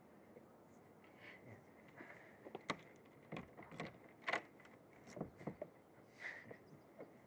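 Footsteps of flat shoes on stone paving and a doorstep: irregular clicks and scuffs, the loudest about four seconds in.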